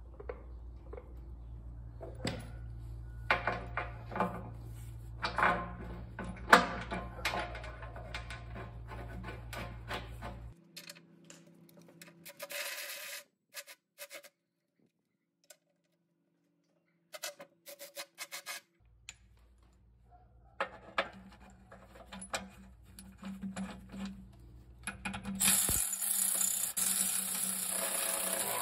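Metal knocks and clicks as a gearbox housing is handled and bolted onto a skid-steer chaincase. Near the end a Milwaukee cordless ratchet runs steadily for about three seconds with a high whine, snugging the housing bolts just enough to hold it in position.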